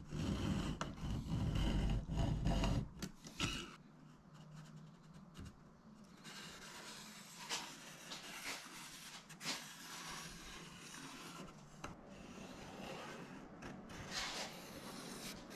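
Hands working on a bare aluminum spar: a louder low rumble of handling for the first three seconds, then light rubbing and scraping as a pen marks the metal and a long level is set on and slid along it, with a few sharper scrapes.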